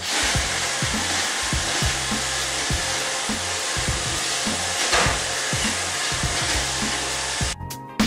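iRobot Roomba 650 robot vacuum running, a steady whirring of its motors and brushes that cuts off suddenly just before the end. Background music with a steady beat plays underneath.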